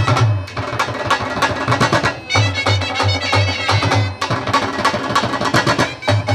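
Live Punjabi folk music: two dhols beaten with sticks in a fast rhythm, with two shehnai-type double-reed pipes playing a sustained melody over them. The deep bass strokes of the dhols come in runs and drop out for a couple of seconds at a time, while the sharper stick strokes keep going.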